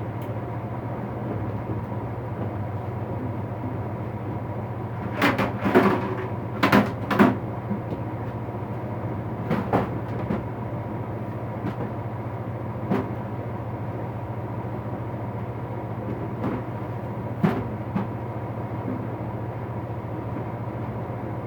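Knocks and clatter of things being handled and set down, with a cluster of louder knocks about five to seven seconds in and single ones later, over a steady low hum.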